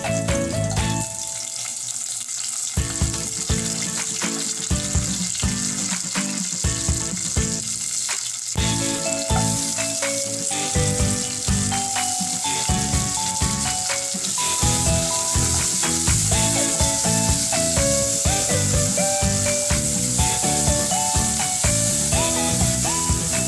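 Garlic frying in a small saucepan with a steady sizzle, green chilies added and stirred in partway through, under background music with a melody and a steady beat.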